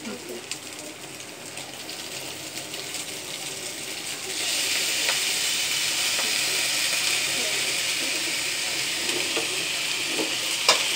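Egg and tomato frying quietly in a hot wok. About four seconds in, drained boiled noodles are tipped in from a strainer and the pan breaks into a loud, steady sizzle. A sharp knock of metal comes near the end.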